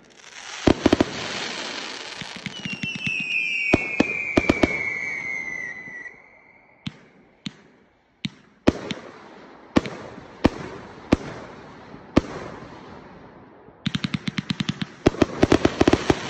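Multi-shot consumer firework cake firing. Early on there are launch bangs and crackling, with a falling whistle lasting a few seconds. Then single bangs come about once a second, and near the end a rapid volley of bangs.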